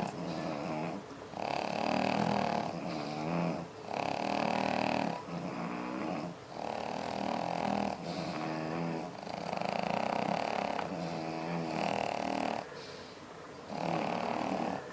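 Pets snoring in a steady rhythm, a loud snore about every one and a half to two seconds, with lower breathing sounds between them.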